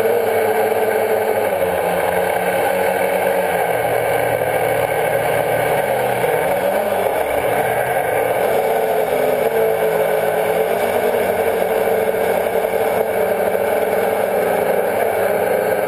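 Quadcopter drone's electric motors and propellers whirring steadily, heard close up from the drone's onboard camera. The pitch wavers up and down about halfway through as the motors change speed.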